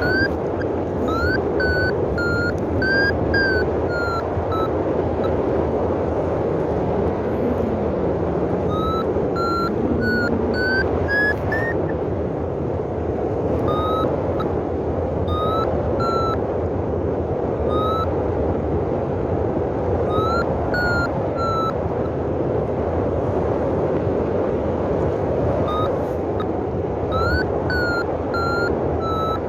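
Paragliding variometer beeping in runs of short tones whose pitch steps up and down, its climb tone signalling rising air, over a steady rush of wind on the microphone.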